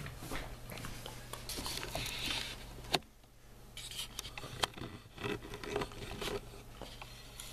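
Rustling, scraping and scattered clicks of movement and handling close to the microphone, with one sharper click about three seconds in, over a steady low hum.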